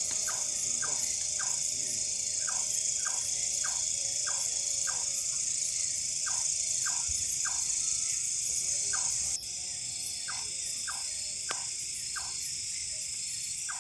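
Night-time forest chorus: a steady high insect hiss with short, regular calls about twice a second, typical of frogs or insects. The overall level drops abruptly about two thirds of the way through.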